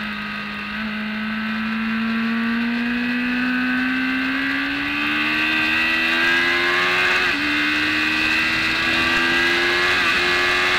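BMW K1200S inline-four engine accelerating hard under the onboard camera, its pitch climbing steadily out of the corner. The pitch drops sharply about seven seconds in and dips again near the end, at upshifts, then climbs again each time.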